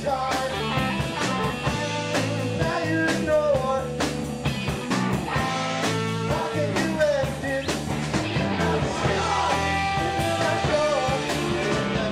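Rock band playing a song: electric guitar and drums, with a singing voice.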